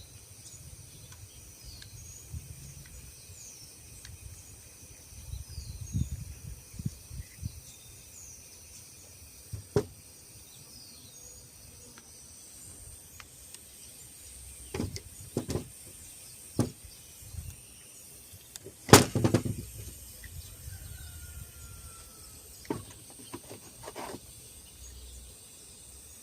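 Scattered knocks and clicks, the loudest about two-thirds of the way through, over a steady background of insects chirping.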